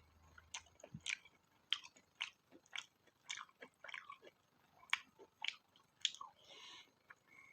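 A person chewing a mouthful of food, close to the microphone, with sharp wet clicks about twice a second.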